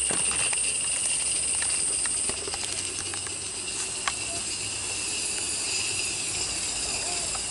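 Steady high-pitched insect drone in two bands of pitch, easing a little after about two seconds. A few crisp footsteps on dry leaf litter near the start, and a single sharp tick about four seconds in.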